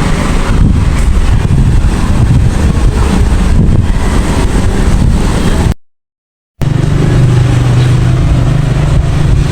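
Loud, steady low rumble with a machine or engine hum, cut by a sudden drop to silence for under a second a little past halfway; after the gap a steady low engine hum stands out.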